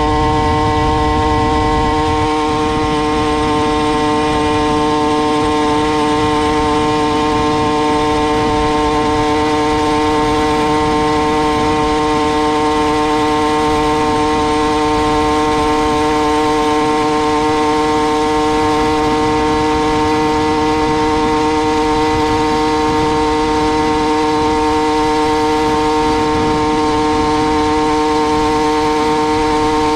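Two-stroke motorized bicycle engine held wide open, running at one steady, unchanging pitch.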